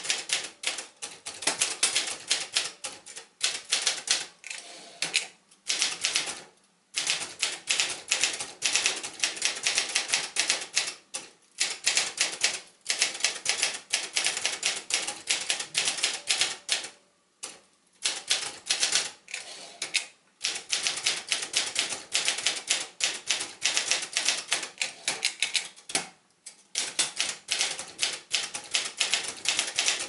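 1980 Brother Accord 10 manual portable typewriter being typed on at a fast, steady pace: a quick run of key and type-bar strikes with a brief pause every few seconds.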